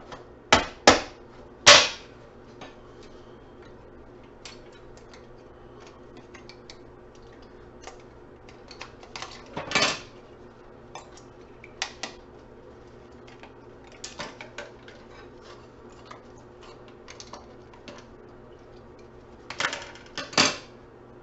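Pliers and small metal scrap parts clicking and clinking on a workbench as computer e-waste is pulled apart, with three loud clacks in the first two seconds, another about ten seconds in and a pair near the end. A faint steady hum runs underneath.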